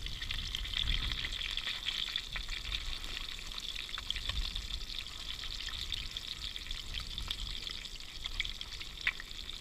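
Whole grunt frying in hot canola oil in a small pan: a steady sizzle with scattered pops and crackles.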